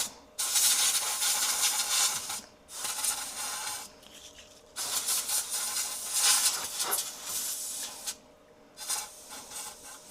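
Can of compressed air spraying in about five hissing blasts with short gaps, the longest about three seconds, blowing loose debris out of a freeze dryer.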